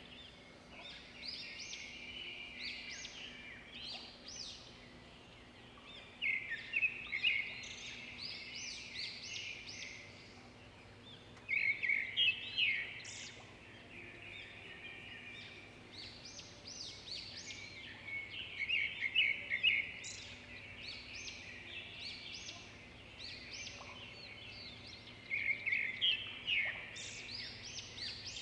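Small birds chirping and twittering in quick runs of notes that come in bursts every five to seven seconds, over a faint steady low hum.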